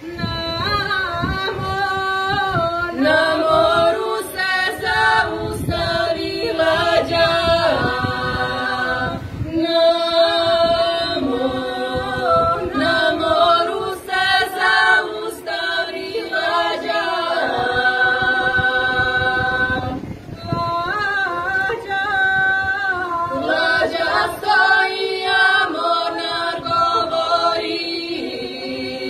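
A women's folk singing group singing a Serbian traditional song unaccompanied, several voices together in long held notes, with short breaks between phrases.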